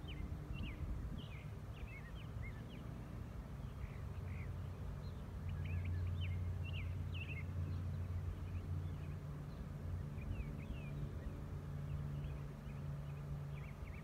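Honey bees of a freshly hived swarm buzzing around the hive box: a low steady hum that swells about five seconds in. Small birds chirp repeatedly in the background.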